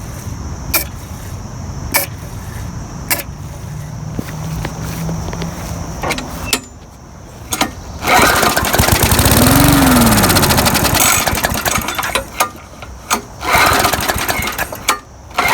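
Murray push mower's small gas engine running rough and uneven. About eight seconds in it runs loud, revving up and dropping back over a couple of seconds, then falls back to uneven running. It is running on fresh fuel put straight into the carburetor, with bad gas in the tank suspected as the cause of the no-start.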